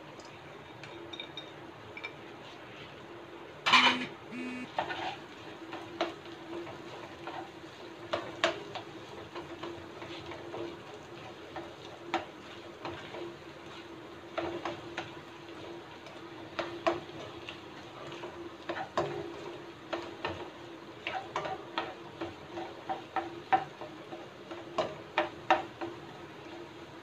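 A spatula stirring and scraping fried rice in a nonstick wok, with irregular scrapes and taps against the pan and a louder knock about four seconds in. A steady low hum runs underneath.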